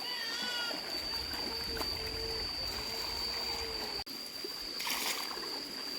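Stream water trickling, with a steady high-pitched tone over it and a brief dropout about four seconds in.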